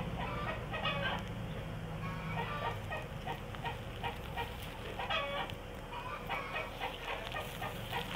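Chickens clucking: several runs of short, quickly repeated clucks.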